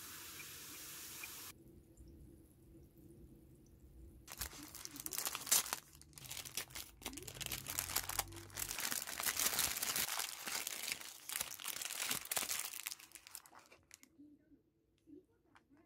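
A glass of cola fizzing with a steady hiss that cuts off about a second and a half in. A few seconds later a Subway sandwich's paper wrapper is unwrapped and torn open, crinkling and crackling for about nine seconds.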